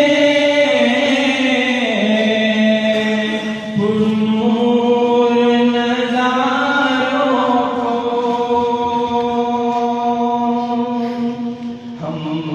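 Voices singing an Urdu naat in long held notes that step to a new pitch every couple of seconds, over a steady hummed vocal backing.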